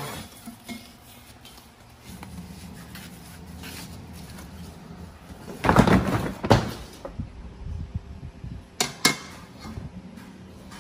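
Scattered knocks and clatter over a low steady hum, with a loud rush of noise about six seconds in and two sharp clicks about nine seconds in.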